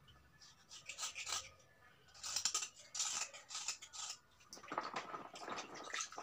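Steel kitchen knife blade scraping the edge of a wet piece of raw slate stone, peeling off its reddish outer layer, in short irregular scrapes.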